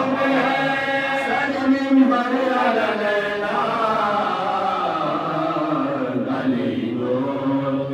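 Group of men chanting a Muharram mourning elegy together, unaccompanied, with long held notes that glide slowly in pitch, picked up through a microphone.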